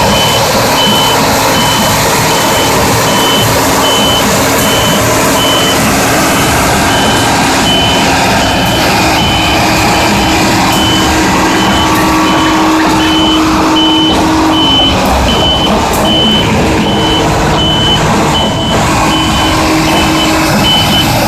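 Liebherr THS 110 D-K crawler concrete pump running loud and steady, with its warning beeper sounding a high, even beep about one and a half times a second throughout.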